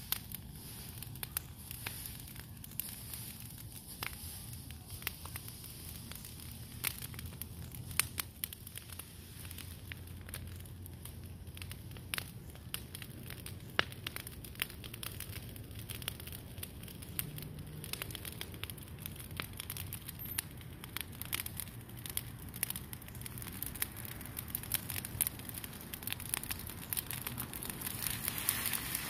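Brush-pile fire of freshly cut green branches and leaves burning, with scattered sharp crackles and pops. Near the end the fire grows louder and denser as dry leaves are thrown on.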